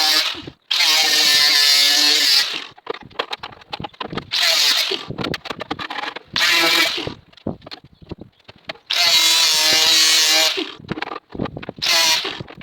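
A grinder working the steel door skin of a classic car in repeated bursts of one to two seconds, each a high whine over grinding hiss. Short scrapes and clicks fall between the bursts as the tool is lifted and set back on the metal.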